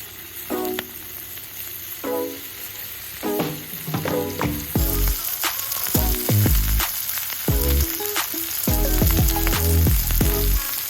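Food frying in a hot pan, a steady sizzling hiss that gets louder about halfway through, under background music with a bass line that comes in about halfway.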